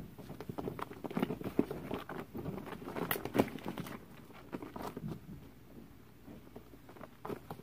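Ferrets scampering and scrabbling in play, their feet making quick irregular taps and light bumps, busiest in the first few seconds and thinning out after.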